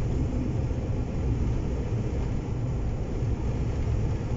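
Steady low rumble of an Iveco Hi-Way truck cruising at motorway speed, engine and tyre noise.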